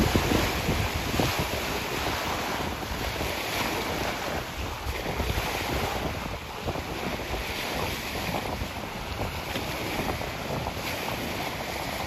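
Sea waves washing in, with wind buffeting the microphone.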